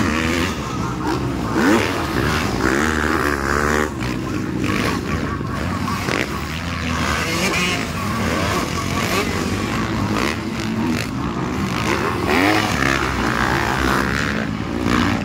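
Motocross dirt bike engines revving hard as bikes race past, the pitch climbing and dropping again and again with the throttle.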